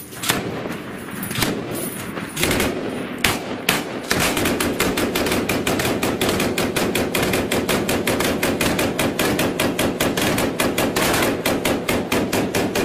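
Gunfire: a few separate shots, then about four seconds in, a long unbroken burst of rapid automatic machine-gun fire.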